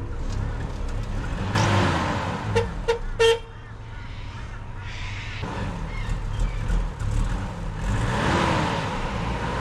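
Toyota 4Y four-cylinder petrol engine of an old Hilux running, revved up and back down twice. Three short horn toots come about three seconds in.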